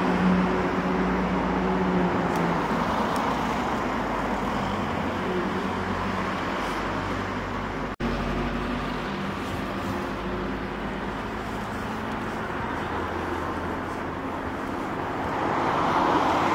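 Road traffic: motor vehicles passing on the road, a steady mix of engine hum and tyre noise, with one vehicle swelling louder near the end.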